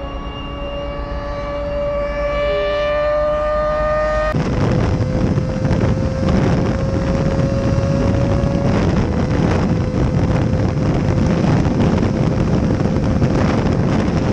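Kawasaki ZX-25R's inline-four engine at very high revs through an SC Project slip-on exhaust, its pitch climbing steadily. About four seconds in, heavy wind rush comes in while the engine holds a high, nearly steady pitch.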